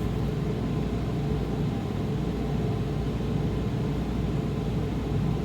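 Steady machine hum: a continuous low rumble and whir with a faint constant tone, unchanging throughout.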